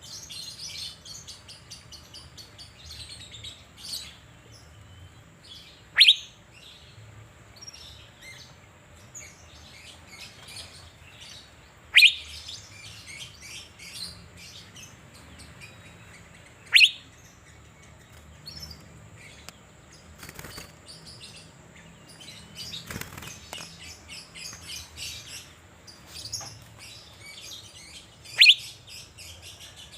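Asian fairy-bluebird (cucak biru) calling: four loud, sharp whistled notes spaced several seconds apart, with softer high chirps in between.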